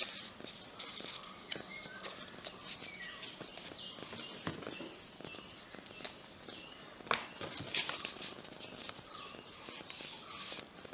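Paper being handled and folded: irregular light crinkles and taps, with short high chirps scattered through it.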